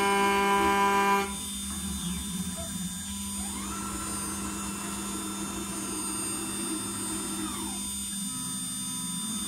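CNC router spindle and end mill cutting steel with a loud steady whine that cuts off about a second in, leaving the spindle's lower hum. Then the stepper motors whine up in pitch, hold, and fall away again as the machine makes a rapid move.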